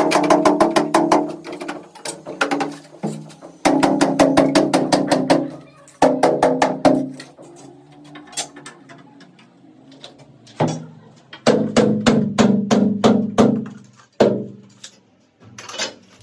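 Music with quick repeated percussive strikes over sustained pitched tones, coming in short phrases that stop and start.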